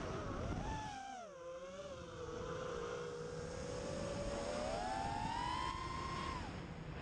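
Win5 FPV quadcopter's brushless motors and props whining as it flies. The pitch drops about a second in, holds, climbs again around five seconds in and falls off near the end as the throttle changes, over the rush of wind on the onboard microphone.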